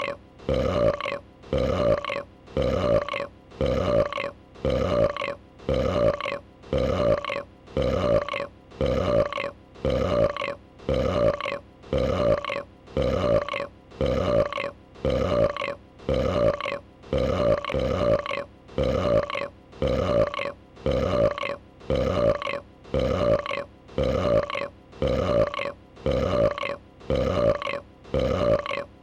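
A dragon burp sound, a short pitched burp, looped over and over at about one burp a second, each one the same.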